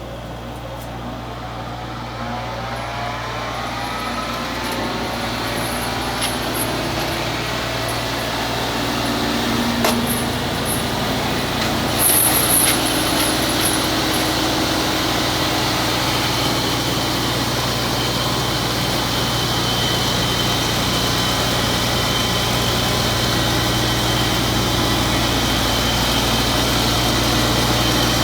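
Kubota U55-4 excavator's diesel engine running under load, driving a Lipa TLE-FS 90 fixed-hammer forestry mulcher; a steady low machine sound that grows louder over the first half, with a couple of sharp knocks around the middle.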